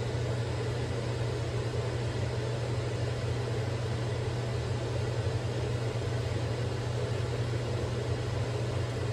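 Steady low machine hum, unchanging, over a faint hiss.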